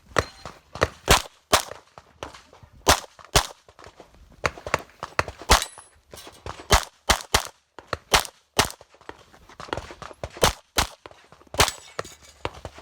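A 9mm competition pistol firing rapidly on an IPSC stage: sharp shots, many in quick pairs, with short breaks between strings.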